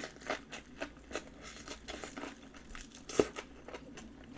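Chewing a mouthful of napa cabbage kimchi: a run of short, moist crunches and crackles, two or three a second, with one much sharper crunch about three seconds in.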